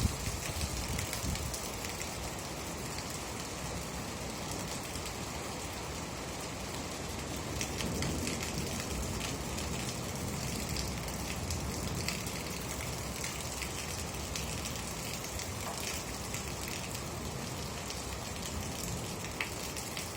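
Steady rain falling, with many small drops ticking on a surface over an even hiss.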